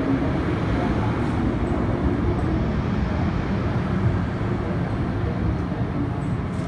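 An MTR Island Line M-Train standing at an underground platform, giving off a steady rumble and hum.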